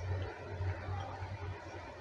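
Low steady hum with faint room noise.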